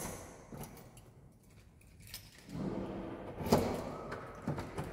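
A bunch of keys jangling and clicking against a door lock as different keys are tried in it, with a sharp click at the start and another about three and a half seconds in.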